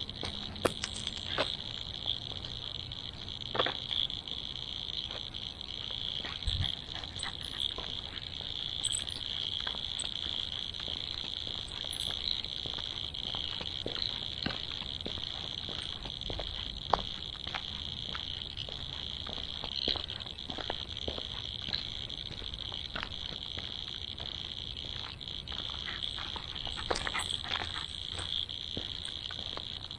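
A steady, high-pitched chorus of frogs, with scattered light clicks and taps.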